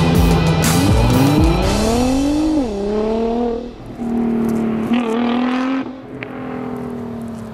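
Nissan GT-R's twin-turbo V6 breathing through a Bull-X exhaust with downpipes, accelerating away hard. Its note rises in pitch, drops at an upshift about two and a half seconds in, rises again, then fades with distance. Background music with a beat plays over the first couple of seconds.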